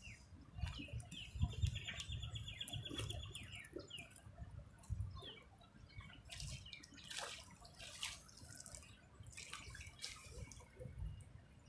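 Faint water dripping and splashing as a fishing landing net is worked at the pond's edge, with birds chirping. A rapid trill of ticks runs for a couple of seconds about a second in.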